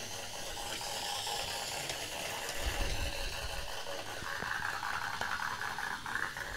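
Vintage Tomy battery-powered toy steam locomotive running along plastic track, pulling two cars. Its small motor and gears give a thin, sad-sounding whir with a light rattle, growing louder about four seconds in.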